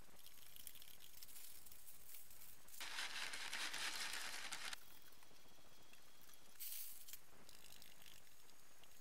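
Chemicals being added by hand to a bucket of water for a blacking solution: two short bursts of rustling, hissing noise over faint room tone. The first comes about three seconds in and lasts nearly two seconds; the second, briefer one comes about seven seconds in.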